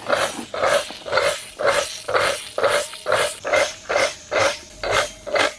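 Kärcher K4.98 pressure washer running and pulsing in short surges, about two a second, each a hiss with a steady hum. The pump is still leaking after the repair.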